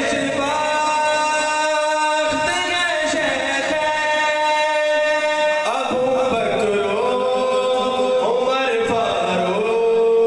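A man singing an Urdu naat (devotional praise poetry) solo into a microphone, in long held notes that glide and step between pitches.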